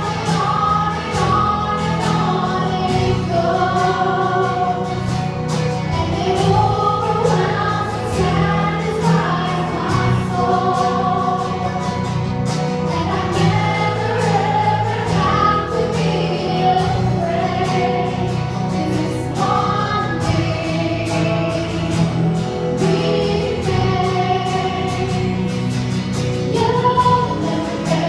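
Choir singing a gospel song over a steady instrumental accompaniment, with held notes that change every second or so.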